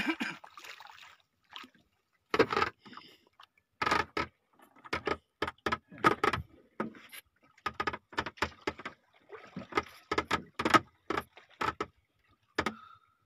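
Irregular short knocks and rustling, splashy noises from a small fishing boat and the water around it, coming in quick clusters with brief silent gaps, while a hooked marlin is being fought.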